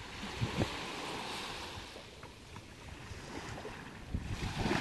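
Wind buffeting the microphone, with a rushing wash of water around a small boat. The wash swells early on and again near the end.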